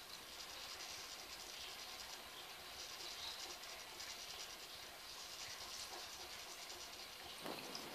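Aquarium filter running, a faint steady fizzing hiss of water and small bubbles. A brief soft bump comes near the end.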